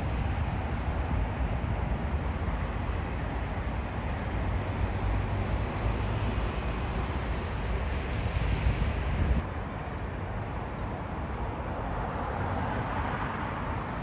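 Jet airliner engine noise from a landing approach, a steady wide rush over a low rumble of wind on the microphone. The sound drops off suddenly about nine seconds in, and jet noise swells again near the end.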